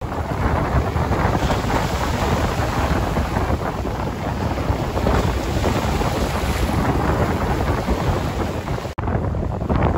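Strong wind buffeting the microphone over rough lake waves washing and breaking on the shore, a dense, steady rush. The sound drops out for a moment near the end.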